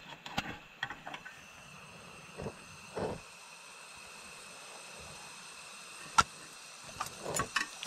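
Camp cooking: scattered light knocks and clicks of metal utensils and pans, with one sharp click about six seconds in and a few more near the end, over a steady hiss with a thin, high, steady whine.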